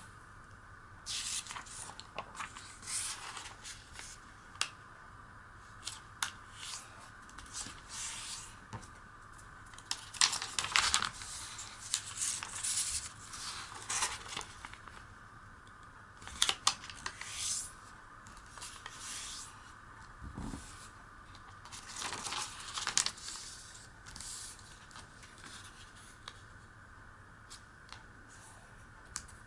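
A square sheet of origami paper being folded by hand: rustling and sliding with crisp creasing strokes, coming in irregular bursts with a few short sharp clicks.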